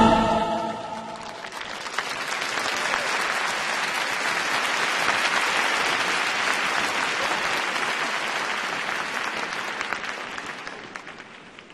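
Large arena crowd applauding at the end of a figure skating program. The applause swells over the first couple of seconds, holds, and fades away near the end, just after the program music dies out at the very start.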